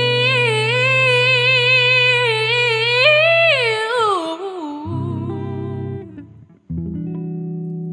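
A woman's voice holds a long wordless note with a wavering pitch that slides down about four seconds in, over a hollow-body archtop electric guitar. The guitar then plays closing chords, the last one struck near the end and left ringing.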